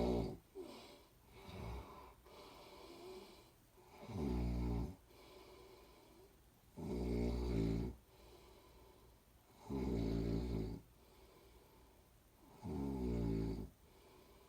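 A person snoring steadily: four loud snores, each about a second long and about three seconds apart, with softer breaths between them.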